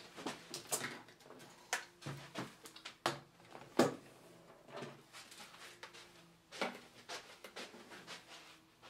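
Scattered knocks and rustles of a white MacBook laptop being brought in and set down on a wooden table, with the loudest knock a little under four seconds in as it is put down.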